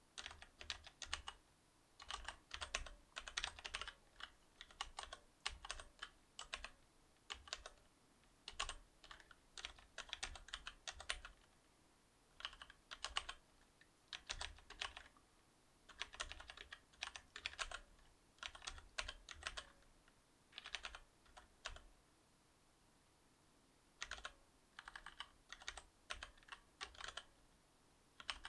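Typing on a Cherry MX Board 8.0 mechanical keyboard with Cherry MX Silver linear switches: bursts of quick key clacks separated by short pauses, with a longer pause about three quarters of the way through.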